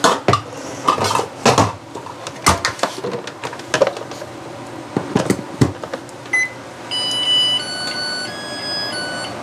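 Zojirushi rice cooker: its inner pot is set in with several knocks and clunks and the lid clicks shut, then a button beep about six seconds in is followed by a short electronic tune of stepping tones, the signal that cooking has started.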